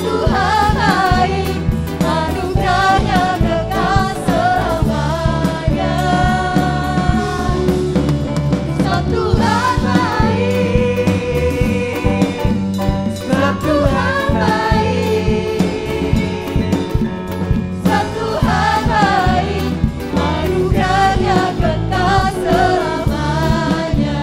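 Contemporary worship band music: a drum kit keeping the beat under a sung melody with backing voices.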